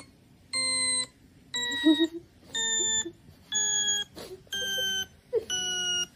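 A series of electronic beep tones played through a speaker, about one a second, each half a second long and a little lower in pitch than the last.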